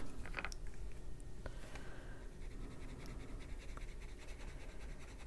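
Faint scratching and a few light clicks of a plastic sheet, used as a palette for watercolour pencils, being handled and worked. A sharper click comes right at the start.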